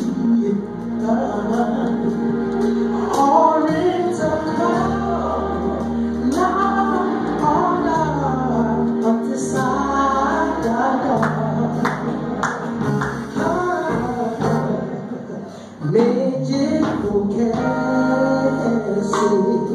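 Trumpet playing a gospel melody over a backing track with a steady, stepping bass line. The melody breaks off briefly about sixteen seconds in, then comes back in.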